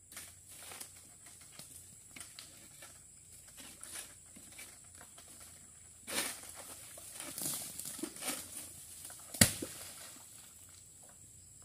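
Rustling and scraping in an oil palm crown as a long-pole sickle (egrek) is pulled through the fronds during harvesting, louder from about six seconds in, then a single sharp thud, the loudest sound, a little after nine seconds.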